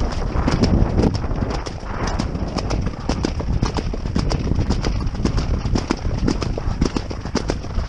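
A horse galloping on turf: rapid, regular hoofbeats from the ridden horse, heard close, over a low rumble of wind on the microphone.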